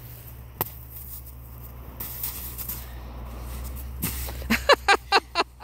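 A person's voice in a quick run of about five short, high cries near the end, over a low steady rumble, with one sharp knock about half a second in.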